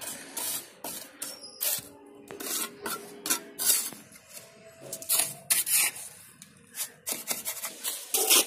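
Steel mason's trowel scraping and spreading wet cement mortar over brickwork: a run of short, uneven rasping scrapes with the odd tap of the blade on brick.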